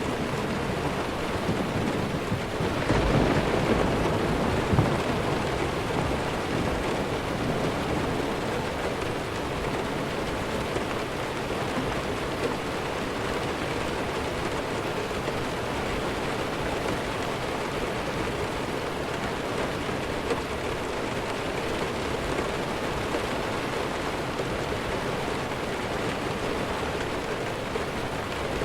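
Steady heavy rain falling, with a low rumble of thunder a few seconds in that fades away.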